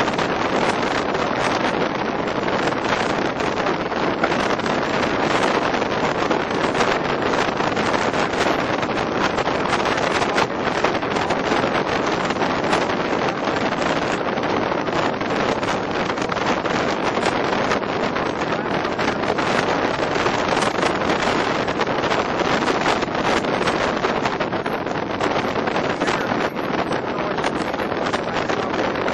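Wind rushing steadily over the microphone while riding in the back of a moving truck, with the truck's road noise underneath.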